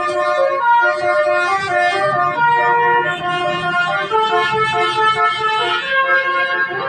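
Indonesian bus 'telolet' multi-tone air horn playing a tune: several held notes sounding together, stepping to new notes every half second or so.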